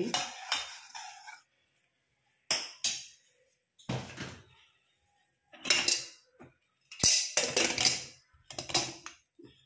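A steel spoon scraping and stirring inside a Prestige Deluxe pressure cooker. It is followed by several short separate metallic clanks and knocks as the cooker's lid is fitted and closed.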